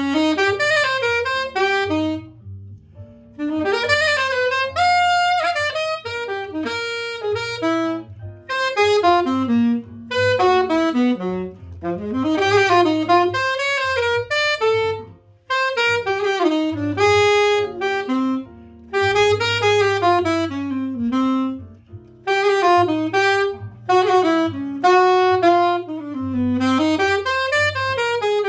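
Alto saxophone playing a slow melody in phrases of a few seconds, with short breaks for breath, over a low accompaniment underneath.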